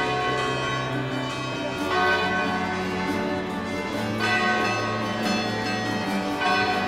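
Church bells ringing, several tones sounding over one another, with a fresh set of strikes about every two seconds.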